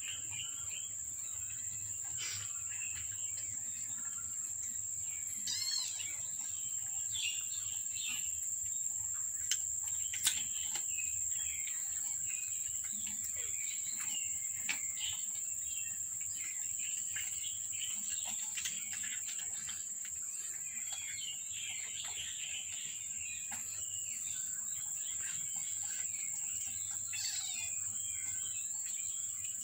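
A steady high-pitched insect trill, with bird chirps scattered over it and a few sharp clicks about ten seconds in.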